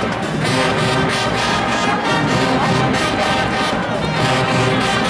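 High school marching band playing a brass tune, horns and sousaphones over a steady drum and cymbal beat.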